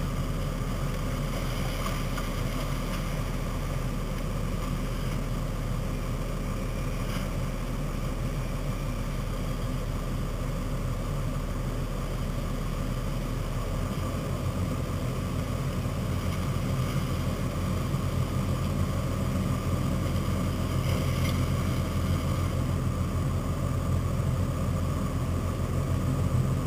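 Off-road 4x4 engines running steadily. Past halfway the engine grows louder as a soft-top Jeep-style 4x4 drives close by and heads for the gravel bank.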